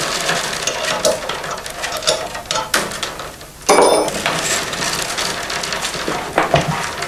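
Basket maker's iron beating rod (Schlageisen) knocking on a willow weave to pack the rods down tight, among irregular clicks and rustles of the willow rods. One louder knock with a short metallic ring about four seconds in.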